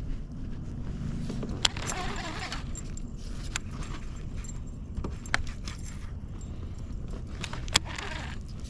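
Fishing tackle clicking and rattling, a few sharp clicks scattered over a steady low rumble.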